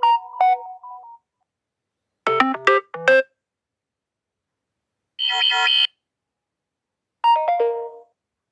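Samsung Galaxy A32 4G notification tones played one after another: four short, different chimes of about a second each, separated by silence.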